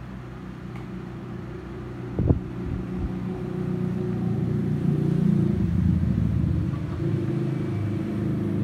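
A low rumble that swells through the middle and eases toward the end, with a single sharp thump about two seconds in.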